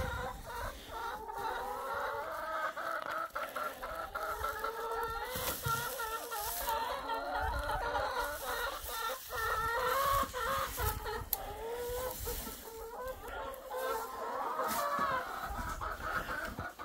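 A flock of chickens clucking and squawking without a break, several birds calling over one another: a ruckus in the flock, the hens squabbling.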